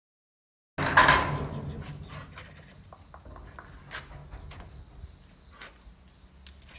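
About a second in, a sudden loud bang that fades over a second or so. It is followed by scattered sharp clicks and scrapes of a large dog's claws on stone paving as the dog jumps up and lands.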